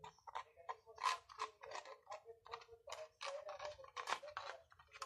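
A cat licking out a small aluminium foil cup with its head inside it, the foil crinkling and scraping on concrete as it is pushed along. The sounds come in an irregular run of short crisp noises, about three or four a second.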